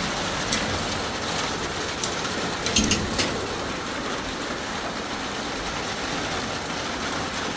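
Steady rain falling, an even hiss at a constant level, with a few brief clicks about three seconds in.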